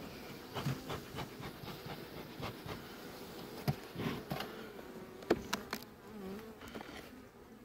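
Honeybees buzzing over an open beehive, a steady hum that wavers up and down as single bees fly close past. A few short, sharp clicks stand out, about halfway through and again a little later.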